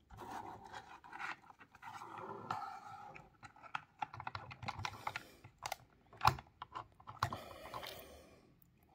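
Fingers handling a small plastic diorama building and its battery box: an irregular run of light clicks, taps and scrapes, with sharper clicks about six and seven seconds in.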